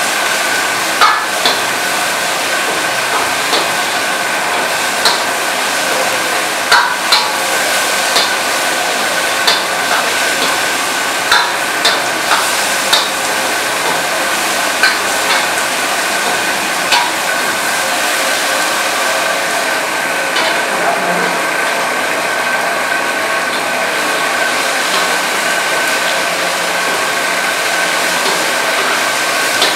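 Chicken sizzling in a steel wok over a gas burner while a metal ladle stirs it, clinking and scraping against the wok. The sharp clinks come about once a second through the first half, then grow sparse, leaving steady frying.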